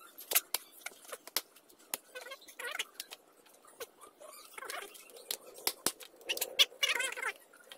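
A large knife chopping and shaving the husk of a young green coconut: a string of sharp, irregular chops and cuts, the loudest one near the end.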